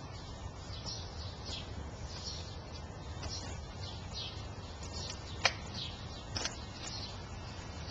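Small birds chirping again and again over a low steady rumble. About five and a half seconds in there is one sharp tap, the metal hive tool knocking on the wooden bee package, and a softer one shortly after.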